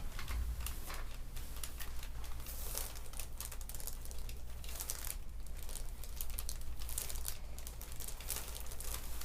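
Irregular crinkling and rustling as the patient's head and neck are handled and repositioned on the chiropractic table, over a steady low hum.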